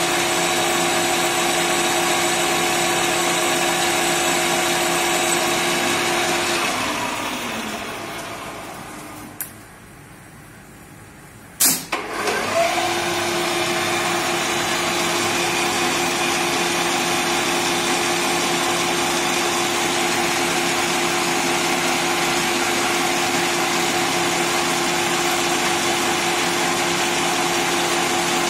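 Small CNC turret lathe running with a steady multi-tone motor sound as it machines a metal bar. About a quarter of the way in the spindle winds down with falling pitch. A click and then a sharp loud clunk follow as the turret indexes to a twist drill. The spindle then spins back up with a rising whine and runs steadily while the drill bores into the bar.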